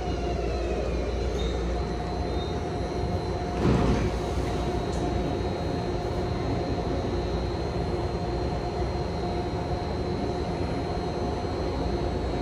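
MARTA CQ310-series rapid-transit railcars standing at the platform with doors open, their onboard equipment giving a steady hum with several held tones; one tone glides down at the start. A brief loud burst of noise comes about four seconds in.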